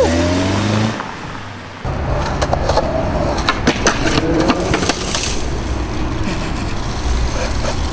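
A car engine revs briefly at the start. Then skateboard wheels roll on concrete with sharp clacks of the board, and the skater crashes into a bush, branches crackling and snapping.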